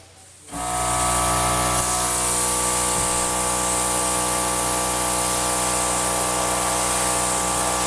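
Compressed-air gun blowing a steady hiss of air across wet acrylic paint, with a steady hum under it; it starts about half a second in.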